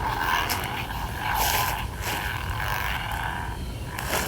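Xeno V3 lightsaber's speaker playing the Kyberphonic Ahsoka Tano sound font: a steady ethereal hum that swells into swing swooshes several times as the blade is waved.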